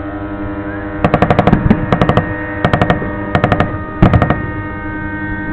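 Fireworks salute going off in rapid strings of cracks, five quick bursts over about three seconds, over music playing throughout.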